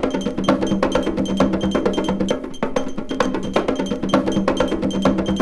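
A chopped vinyl sample playing back as a loop on an Akai MPC X sampler: a fast, busy percussive rhythm with a held low note underneath.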